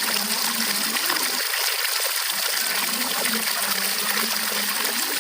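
Clear water flowing with a steady, even rushing splash.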